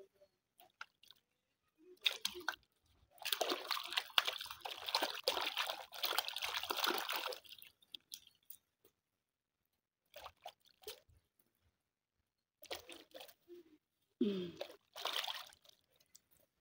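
Hands swishing and rubbing chunks of peeled yam in a basin of water, with splashing and dripping as pieces are lifted out. The sound comes in bursts; the longest runs about four seconds, starting about three seconds in, and shorter splashes and knocks follow near the end.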